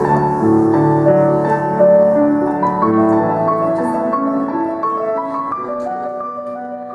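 Instrumental piano music, a piano version of the first-dance song, fading out near the end.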